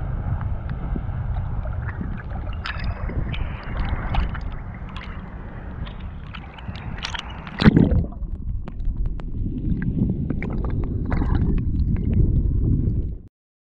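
Sea water lapping and splashing against a camera held at the surface, over a steady low rumble, with small drips and clicks. There is a louder splash about eight seconds in, and the sound cuts off suddenly near the end.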